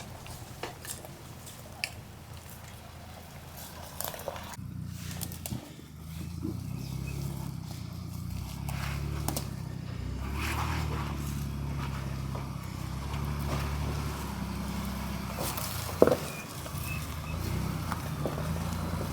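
Off-road vehicle engine running low and steady while crawling a trail, growing louder about six seconds in. Scattered clicks and scrapes come through, with one sharp knock about 16 seconds in.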